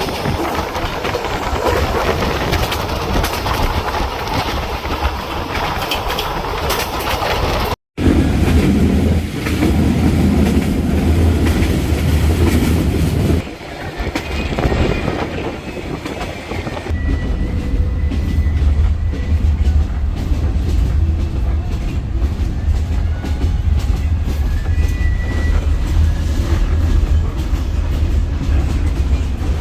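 Passenger sleeper train running on its rails: a steady low rumble with rattling clickety-clack from the wheels and carriage. The sound cuts out for a moment about eight seconds in, and its character shifts a couple of times after that.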